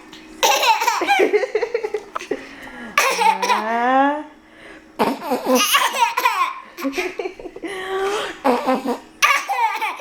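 Toddler laughing hard in several separate bursts of belly laughs and giggles.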